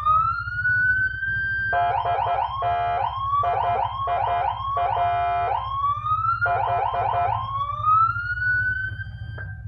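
Custom Landun patwal-style siren on a motorcycle sounding in two tones. A wail rises and then holds high, and it alternates several times with bursts of a rapid stuttering, chopped tone. It ends on another long rising wail, over a steady low rumble.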